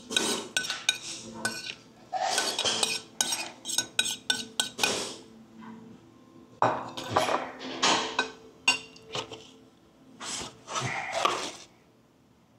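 A ceramic plate and metal utensils clatter, with sharp clinks and short scrapes, as leftover noodles are scraped off the plate into a foam takeout box and the box is shut. It goes quiet in the last second or so.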